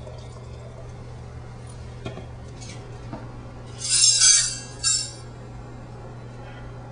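Drink poured into a wine glass in two short splashy pours about four seconds in, over a steady low electrical hum with a few faint clicks.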